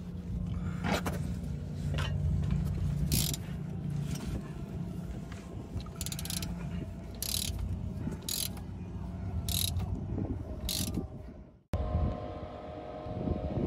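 Socket ratchet clicking in short bursts about once a second as a bolt under the car is worked loose by hand. The sound cuts off suddenly near the end.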